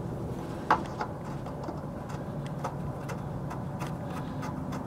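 Small clicks and ticks of a plastic sleeper cab airbag being turned by hand onto its threaded stud, with one sharper click a little under a second in. A steady low hum runs underneath.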